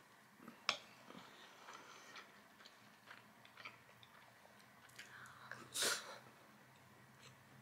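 Faint close-up mouth sounds of chewing a mouthful of truffle butter fried rice with egg: soft wet clicks and smacks. A sharper click comes a little under a second in, and a brief louder rustle about six seconds in.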